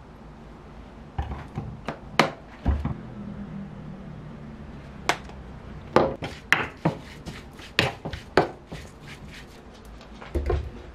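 Seasoning pork belly and starting a sauce: a metal spoon, seasoning bottles and a glass dish knocking and clinking against each other and the countertop, in a string of sharp, irregular clicks, busiest from about six to eight and a half seconds in.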